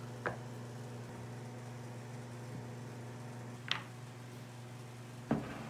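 Three short, light knocks, one near the start, one past the middle and one near the end, over a steady low hum.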